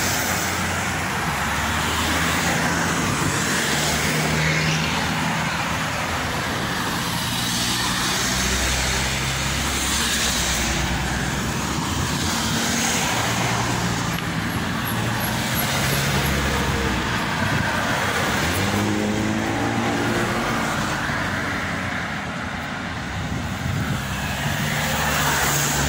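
Road traffic noise: motor vehicles running with a steady low engine hum, and one sweep in pitch about three-quarters of the way through, as of a vehicle revving or passing.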